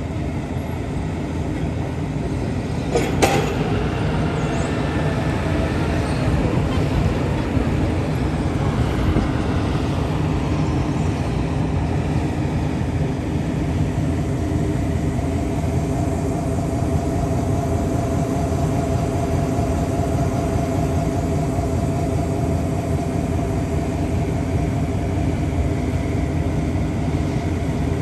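Diesel engine of heavy construction machinery running steadily with a low rumble, with one sharp metallic clank about three seconds in.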